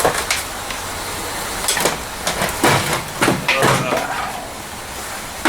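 Discarded electronics being handled in a dumpster: a series of knocks and clatters as hard items are shifted and bumped together, busiest around the middle, over a steady background hiss.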